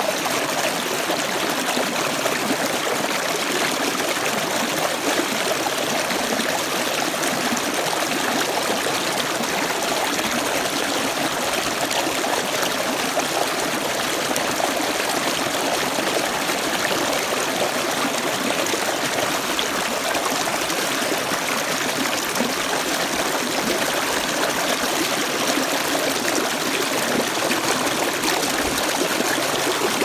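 Shallow, rocky stream rushing and splashing over and between mossy boulders in small cascades, a steady, even water noise.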